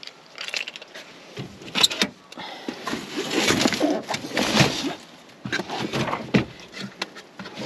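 Clicks, knocks and scraping from handling a caravan's cassette toilet and its waste canister, busiest about three to five seconds in.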